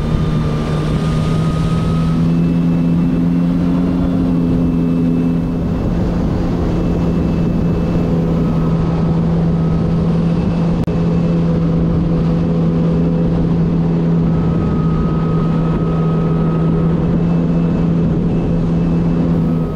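The supercharged four-cylinder engine of a 2022 Kawasaki Ultra 310 LX jet ski running under way at a steady throttle: an even engine drone at one pitch, over a steady rush of noise.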